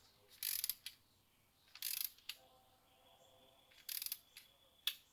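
A torque wrench's ratchet being worked in short strokes while tightening an intake manifold bolt to 18 foot-pounds: several brief clicking ratchet passes, with a sharp click near the end.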